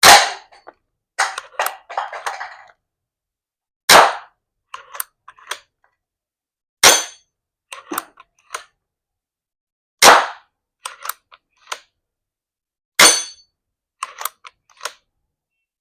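Snowpeak Max 1 PCP air rifle fired five times, about three seconds apart, each sharp report followed by a few small clicks.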